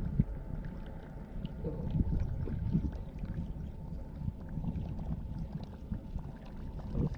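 Wind and small waves slapping against the hull of a small fishing boat on choppy water: a low, uneven rumble that swells and eases.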